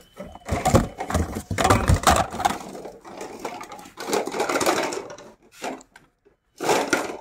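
Hard plastic PVC pipe fittings clattering and knocking together as they are handled and packed, a quick irregular run of clicks and rustles that stops for about a second near the end before starting again.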